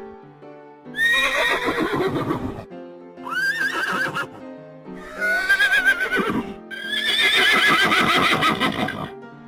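Horse neighing, a run of four quavering whinnies, the last two nearly running together, over light background music.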